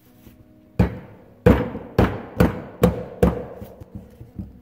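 Rubber mallet striking a turbocharger's housing again and again, about two blows a second, each hit followed by a brief ring from the metal. The blows are meant to break loose a compressor housing held on by high-temp RTV sealant.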